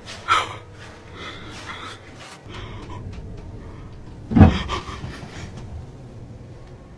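A person breathing heavily in short breaths, with one short loud sound about four and a half seconds in.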